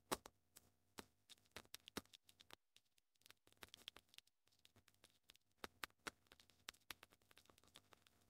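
Faint, irregular clicking of a computer keyboard being typed on, a few keystrokes a second with a short pause partway through.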